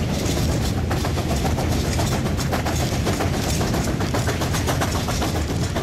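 Steam locomotive hauling a loaded coal train and working hard, its exhaust beating in a rapid, even chuff over a heavy rumble.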